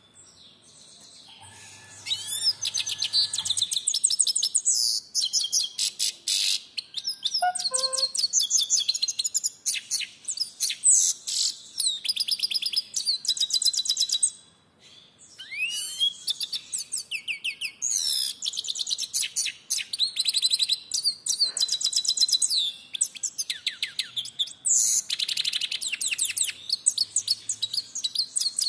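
Goldfinch singing: a long run of rapid, twittering, high notes that starts about two seconds in, breaks off for about a second halfway through, then carries on.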